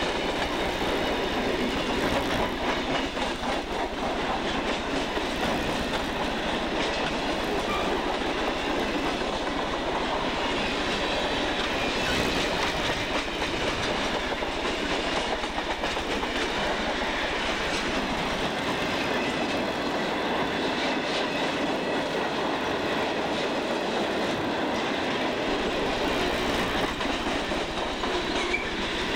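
Mixed freight cars of a long train (tank cars, boxcars, covered hoppers) rolling past close by: a steady noise of steel wheels on rail, with wheel clatter over the track.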